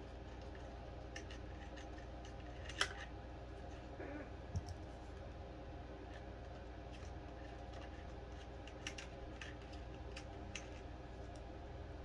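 Faint scattered clicks and light ticks of hands unscrewing the screw-on Wi-Fi antenna connectors from a mini PC's rear panel, with one sharper click about three seconds in. A faint steady hum runs underneath.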